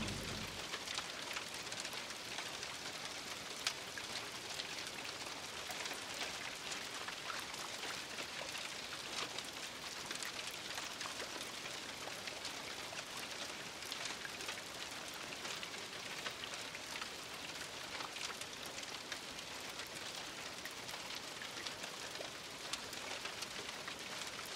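Water drops pattering steadily on wet surfaces: a dense, even patter of many small drips over a soft hiss, with no pause or change.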